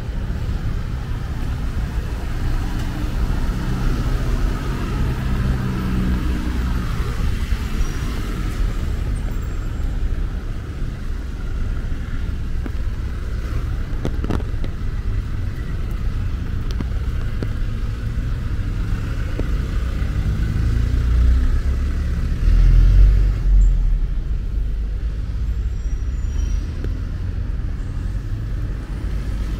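Road traffic: cars driving past, their engine notes rising and falling over a steady low rumble, which swells louder late on.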